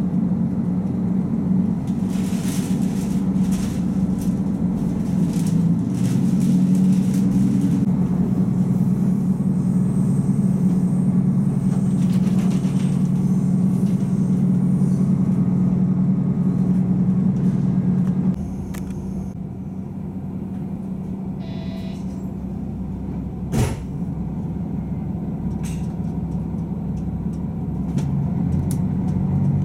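Cabin sound of a KiHa 185 diesel railcar under way: the diesel engine drones steadily under power, then drops back about two-thirds of the way through as the train coasts. A single sharp knock from the running gear comes a few seconds later, and the drone builds again near the end.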